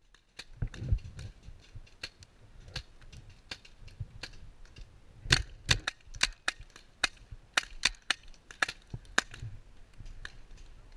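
Irregular sharp pops of paintball markers firing and paintballs smacking the wooden cable-spool bunker, coming thickest from about five seconds in.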